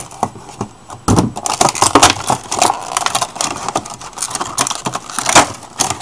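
Product packaging being forced and torn open by hand: rustling, crackling and a rapid run of sharp snaps and clicks.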